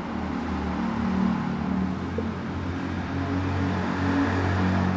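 A motor running with a steady low hum, slightly swelling and easing.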